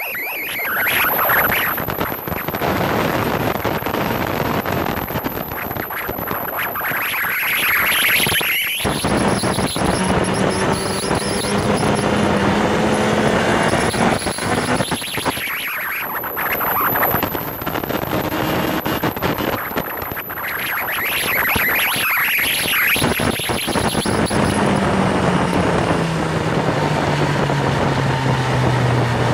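Motorcycle at speed on a race track: wind rush over the onboard microphone swells and fades, with the engine's steady drone underneath. In the last few seconds the engine note falls as the bike slows.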